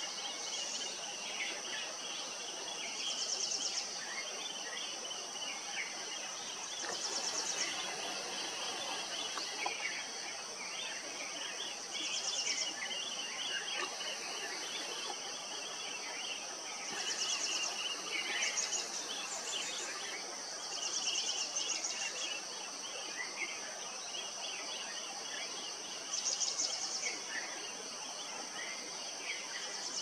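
Tropical forest ambience: a steady, high insect drone with pulsing insect trills that swell every few seconds, over many short bird chirps.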